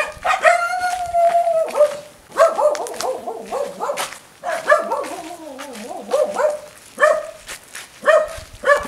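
A dog barking and whining in high-pitched yelps: a long whine about a second long at the start, a whine that slides down in pitch around the middle, and quick repeated barks, about two a second, near the end.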